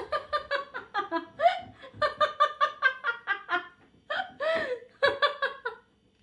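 A woman laughing heartily: a long run of quick, even 'ha-ha' pulses, then two shorter peals after a brief pause.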